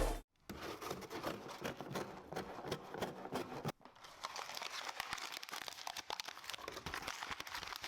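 Faint, irregular crinkling and rustling of packaging being handled, with a short pause partway through.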